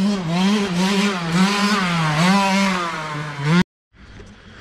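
KTM 65 dirt bike's 65cc two-stroke single-cylinder engine being ridden at high revs, its buzzing pitch rising and falling with the throttle. The sound cuts off abruptly about three and a half seconds in.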